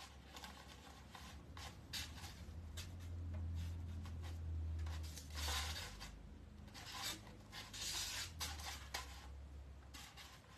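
Chenille pipe cleaners being pulled through a metal wire wreath form and twisted tight, making soft scratchy rubbing and rustling against the wire and foam board, over a low steady hum.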